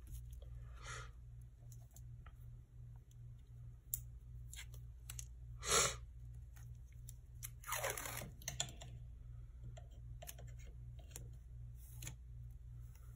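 Washi tape being pulled off its roll and torn, with a short rip about six seconds in and a longer one about two seconds later, amid small clicks of paper and sticker handling.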